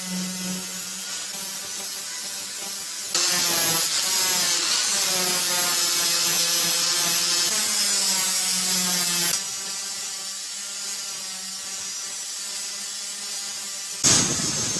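Electric power tool running steadily, with a louder, hissier stretch from about three to nine seconds in as it bears on the work. A sudden louder sound starts near the end.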